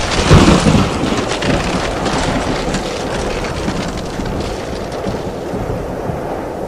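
Cinematic logo-sting sound effect: a heavy hit just after the start, then a long noisy rush with fine crackling that slowly fades, as the logo shatters.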